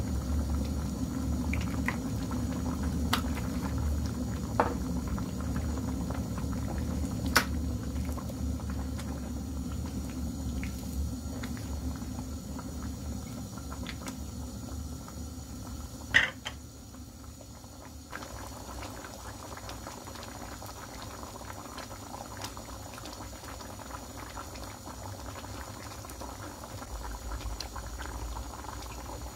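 Mung bean and chicken stew bubbling at a simmer in a stainless steel pot, softer in the second half. A few sharp clicks cut through it, the loudest about sixteen seconds in.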